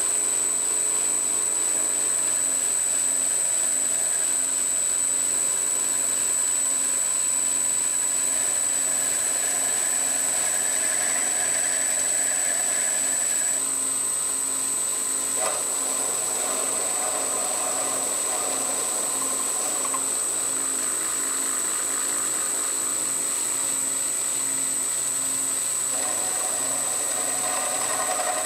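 Schaublin 102 lathe running while its tool turns down a brass clock fusee, a steady machine sound with a high-pitched whine. The sound shifts slightly about halfway through.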